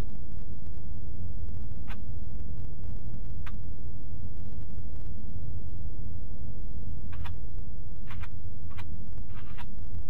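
Car driving, heard from inside the cabin: a steady low rumble of engine and tyres on the road, with scattered short clicks, most of them in the last few seconds.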